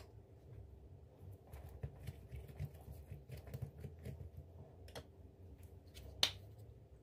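A spoon spreading mayonnaise over a thin flatbread on paper: soft scraping and light ticks of the spoon, with one sharp click about six seconds in.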